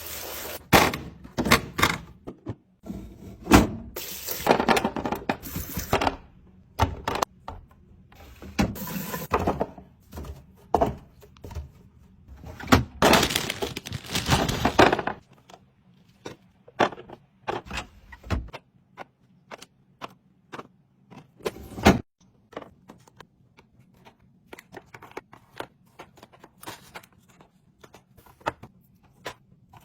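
Packaging and containers being handled while a fridge is restocked with sweets: crinkling and rustling of wrappers in several stretches over the first half, with sharp clicks and knocks as items are set down. Later come sparser clicks and one louder knock.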